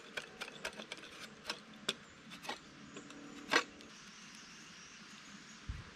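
Knife blade shaving a wooden bow stave in short, sharp scraping strokes, about four a second, slowing and stopping after about two and a half seconds, with one louder stroke about three and a half seconds in.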